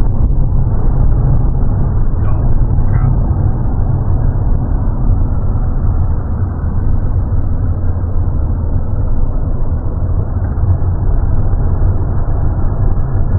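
Steady low rumble of a car driving, heard from inside the cabin: road and engine noise, with no pitch changes.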